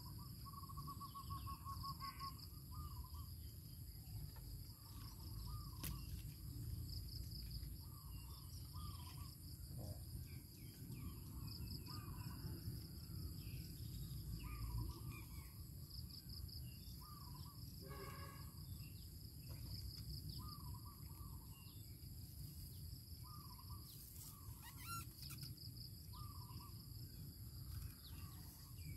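Rural outdoor ambience: a bird gives a short call every second or two, starting with a rapid trill. Under it insects chirp in a steady pulsing drone over a low steady rumble.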